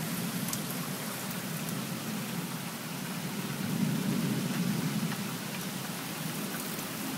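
Steady rain falling in a thunderstorm, with a low rumble of thunder swelling about four seconds in.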